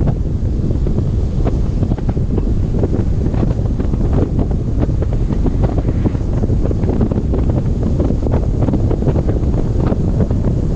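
Strong wind buffeting the microphone: a loud, steady low rumble broken by frequent short knocks and gusts.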